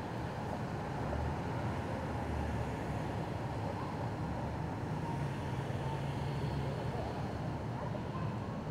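Steady traffic noise of cars driving along a city street: a continuous low rumble of engines and tyres.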